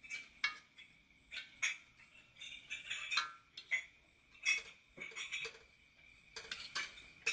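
Spatula scraping and knocking against a metal wok as noodles are stirred, about a dozen uneven strokes, over a faint steady high tone.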